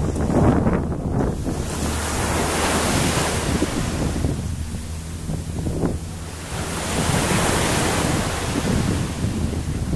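Wind buffeting the camera microphone, a low rumbling rush that swells and fades in gusts.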